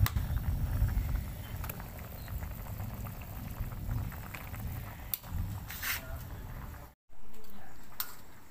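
Wok of cempedak seeds boiling in salted water over a gas stove, under a low rumble, with a few sharp clicks of a jar and bottle being handled. The sound cuts out for a moment about seven seconds in.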